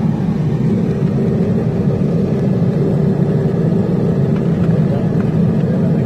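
A small airliner's engines running while it taxis, heard inside the cabin as a loud, steady drone with a faint steady hum above it.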